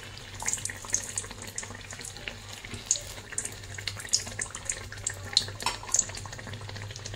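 Hot oil sizzling and bubbling around a malpua (flour-and-semolina batter fritter) deep-frying in a kadai, with irregular sharp crackles and pops.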